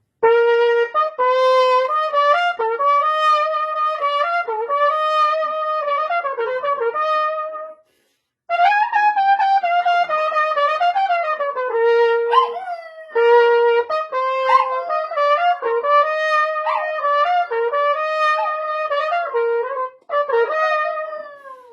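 Trumpet playing a melody of held notes while a dog howls along with sliding, wavering pitches. The playing pauses briefly about eight seconds in.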